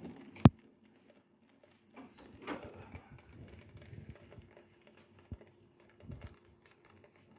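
A single sharp knock about half a second in, then faint rustling and a few soft low thumps over a low steady hum: the phone being handled while it films through a window.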